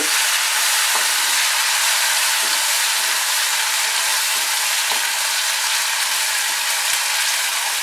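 Onions and spice paste frying in hot oil in an aluminium kadhai, sizzling steadily, while a wooden spatula stirs them with a few faint scrapes against the pan.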